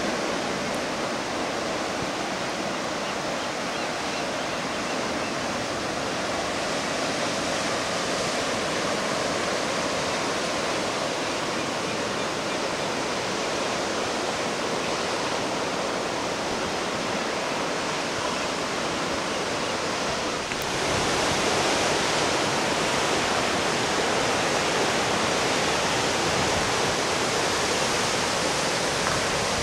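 Ocean surf breaking on rocks and beach far below, heard as a steady, even rush of noise with no single waves standing out. It gets a little louder about two-thirds of the way through.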